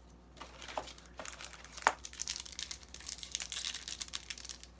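Foil booster-pack wrapper crinkling and crackling as it is handled in the hands, with a sharper crackle about two seconds in.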